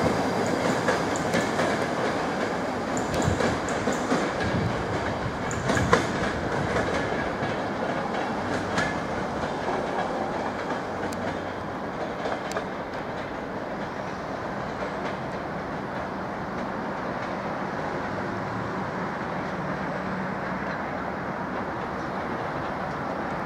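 Passenger coaches of a departing express train rolling away over station pointwork, the wheels giving scattered clicks and clatters over rail joints and switches. The rumble fades slowly as the train draws away.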